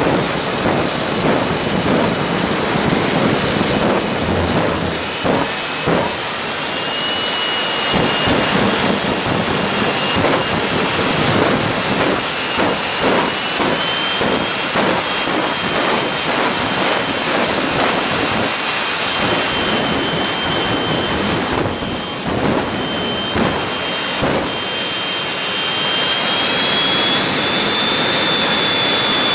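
Jet dragsters' turbojet engines running loudly at the starting line: a continuous jet roar with a steady high whine. The whine steps up in pitch about seven seconds in and again near the end.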